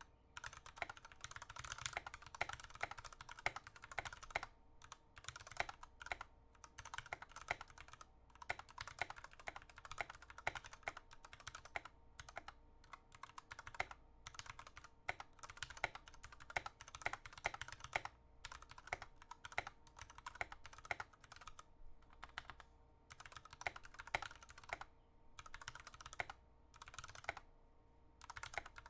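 Mechanical gaming keyboard with unlubed switches and stabilizers being typed on in fast runs of keystrokes with short pauses: a sound test of the keys.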